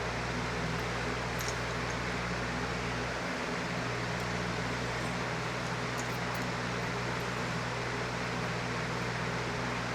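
Steady background hum and hiss, with a few faint light clicks.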